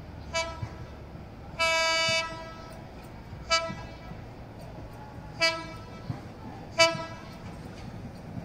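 Hyundai Rotem DMU's horn sounding as the train approaches. A faint short toot is followed by one long blast of about half a second, then three short toots about two seconds apart.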